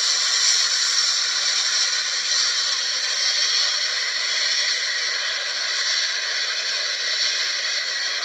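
Steady high hiss of a distant Boeing 737-800's CFM56 jet engines as it taxis, with faint whistling tones in it.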